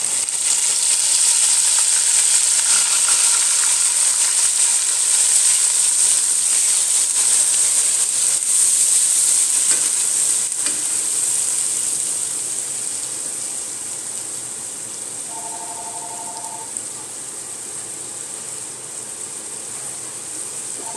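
Onion paste sizzling in hot oil with whole spices in a nonstick pot while a wooden spoon stirs it; the sizzle is loudest for the first dozen seconds, then settles lower. A phone rings briefly about three-quarters of the way through.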